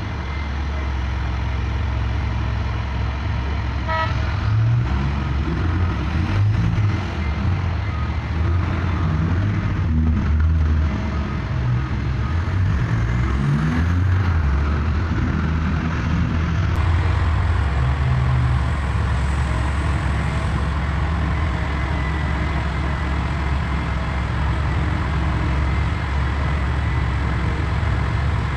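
Heavy diesel engines of a mining excavator and haul truck running: a steady low rumble whose pitch rises and falls under load for the first half, then settles.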